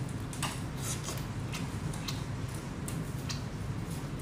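Close-miked wet chewing of tiger prawn meat: a run of short mouth clicks and smacks, roughly one every half second, over a steady low hum.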